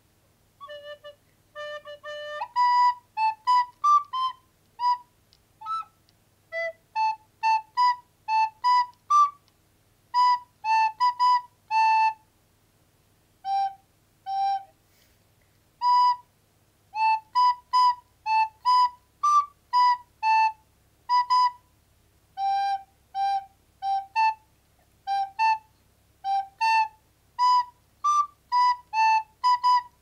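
Soprano recorder playing a simple melody in short, separately tongued notes, grouped into phrases with brief pauses between them.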